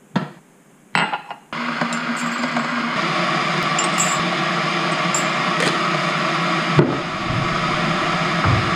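A spoon clinking against a ceramic mug, then a steady rushing hiss that starts about one and a half seconds in, an electric kettle heating water, with a few faint spoon ticks over it.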